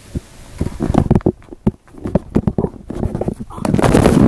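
Handling noise on a phone's microphone: a run of irregular knocks and thumps, then loud rubbing and rustling as the phone is covered near the end.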